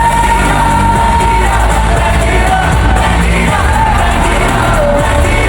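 K-pop song performed live with singing over a loud backing track with heavy bass, amplified through a concert venue's sound system during a sound check.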